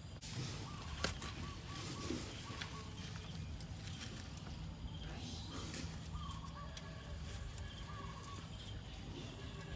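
Outdoor background with faint short bird or fowl calls over a steady low hum, and a few sharp knocks, the loudest about a second in.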